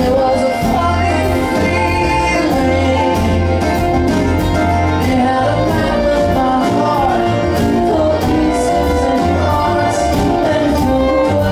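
A live acoustic string band plays a song on mandolin, five-string banjo, acoustic guitar and upright bass, with a bass line moving underneath.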